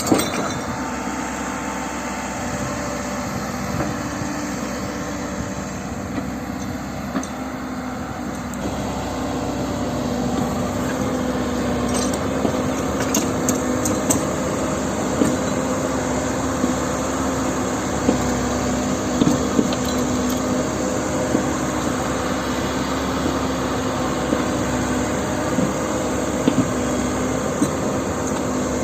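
Heavy diesel machinery running steadily with a constant engine hum, growing a little louder about a third of the way in, with scattered clicks and knocks through the second half.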